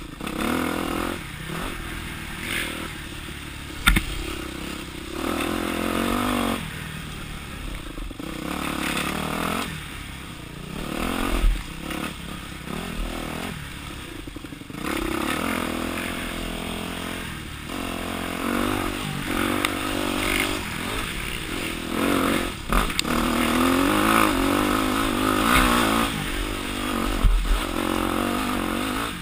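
Dirt bike engine revving up and falling back again and again as the rider works the throttle along a rough trail, with several sharp knocks and clatters from the bike as it hits bumps.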